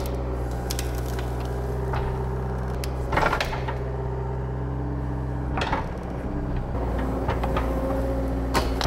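John Deere 333G compact track loader's diesel engine running steadily under load as its tree puller grips and pulls a fence post, with a higher whine coming and going. Three sharp clunks of wood and metal stand out, about three seconds in, a little past five seconds, and near the end.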